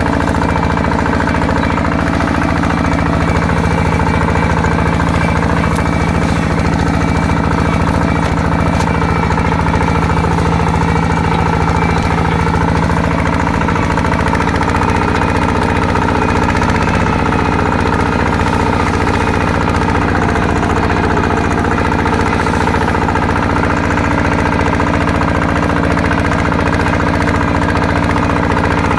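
Small single-cylinder diesel engine of a walk-behind tractor running steadily, its pitch shifting slightly about halfway through.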